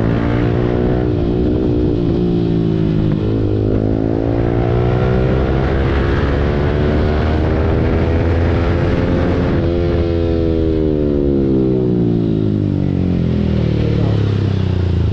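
Yamaha R15 V4's single-cylinder engine through an Akrapovic full-system exhaust, pulling up through the revs: the pitch climbs, drops at a gear change about three seconds in, and climbs again for several seconds. From about ten seconds in it falls away steadily as the bike slows.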